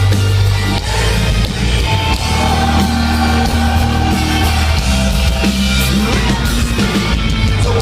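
Heavy metal band playing live, loud: distorted guitars, drums and bass, with singing over them.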